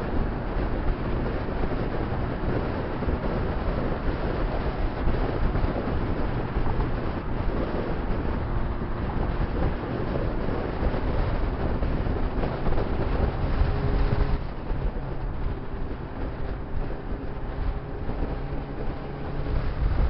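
Honda CBR600RR's inline-four engine running as the bike is ridden, with wind rushing over the microphone. The sound gets quieter about two-thirds of the way through.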